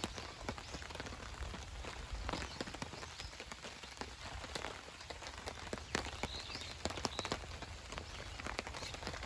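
Rain falling on a nylon tarp, a steady patter with irregular sharper drops ticking throughout.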